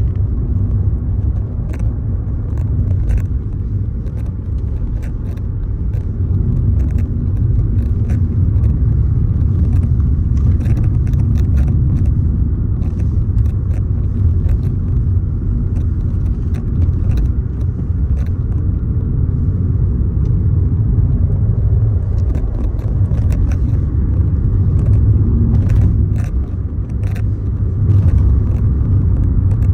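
A loud, uneven low rumble with scattered faint clicks.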